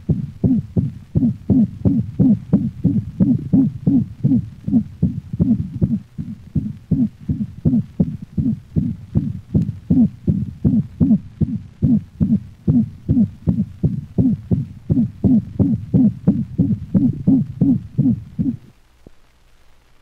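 A dog's heart heard through a stethoscope, beating in a quick, regular rhythm with a musical, pitched murmur on each beat: a systolic whoop (seagull murmur), a variation of the holosystolic murmur of atrioventricular valve insufficiency. The heart sounds stop about 18 seconds in, leaving a faint hum.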